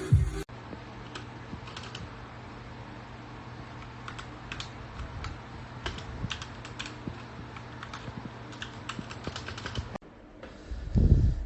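Typing on a DareU EK87 V2 mechanical keyboard: scattered key clicks over a steady low hum, with a loud low thump near the end.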